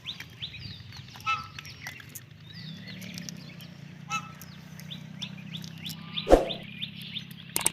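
Birds chirping and calling in short repeated notes, with one louder, sudden sound about six seconds in, over a low steady hum.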